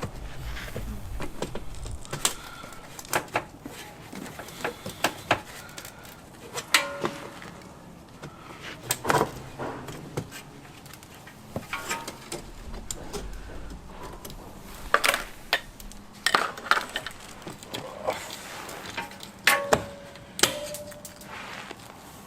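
Irregular clicks, knocks and metallic clinks as a car's metal bumper trim piece is worked loose and pulled off, a few of the knocks ringing briefly.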